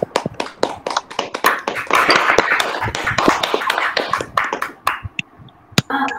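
Applause from several people clapping, heard through a video call; the claps build to a dense patter in the middle and thin out to a few scattered claps near the end.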